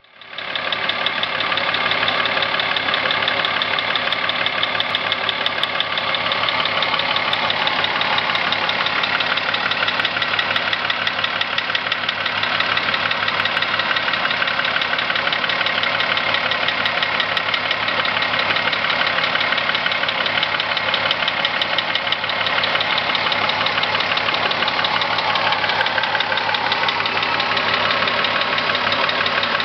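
Volkswagen Corrado's VR6 narrow-angle V6 engine running steadily, with a fast, even knocking tapping through the running, which the owner takes for engine knock.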